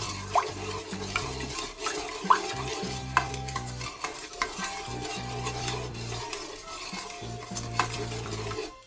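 A plastic rice paddle stirs sugar, water and lemon juice in the inner bowl of a Redmond multicooker, making repeated scrapes and clicks against the bowl.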